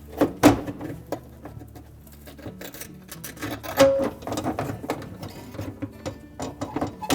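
Irregular clicks, knocks and rattles of a dishwasher's lower spray arm and heating element being handled inside the tub as the element is worked free of its standoffs, with a louder knock about half a second in and another near four seconds.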